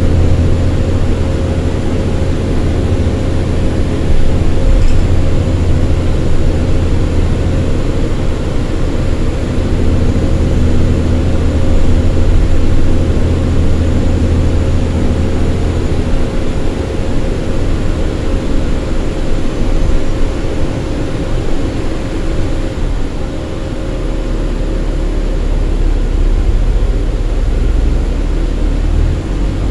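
Cabin noise of a New Flyer city bus under way: a steady low engine and drivetrain hum with a steady whine over it. The low hum drops in pitch a little past halfway.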